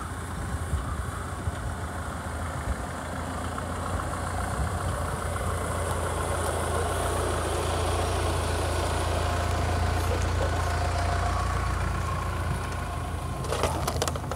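Mahindra Thar engine running with a steady low hum that grows louder for a few seconds in the middle. A quick run of sharp clicks comes near the end.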